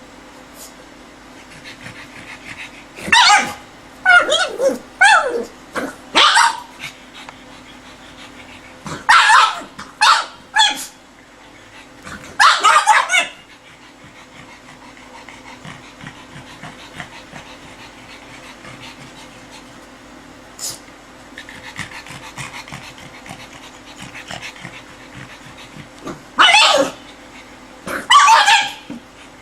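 Pug making its odd vocal noises in three bursts of short, yelping, whining calls that bend up and down in pitch, with quiet stretches between.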